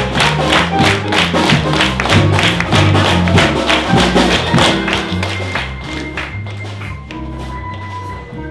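Small jazz band (bass, piano, saxophone, drums) playing, with a rapid flurry of tap-dance steps over a moving bass line. About five seconds in, the taps thin out and the music drops quieter with a few held notes.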